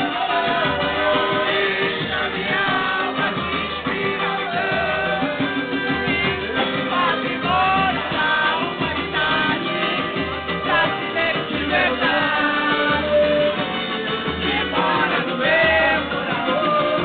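Live samba band performing: a singer carries the melody over strummed strings, hand percussion and keyboard, with a steady low beat underneath.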